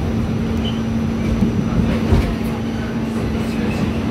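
R46 subway car running, heard from inside the car: a steady rumble with a steady low hum, and a couple of brief knocks about one and a half and two seconds in.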